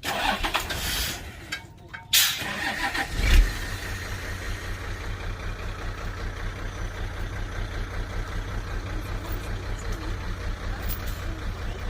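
A heavy machine's engine starts with a loud low burst about three seconds in, then runs steadily with an even pulse.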